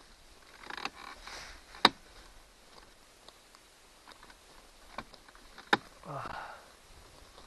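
A screwdriver prying at a car dashboard clock's plastic housing, with creaking and scraping and two sharp snaps, one about two seconds in and one near six seconds.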